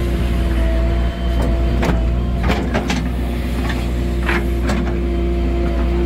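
JCB 3DX backhoe loader's diesel engine running steadily, with several sharp knocks between about two and five seconds in.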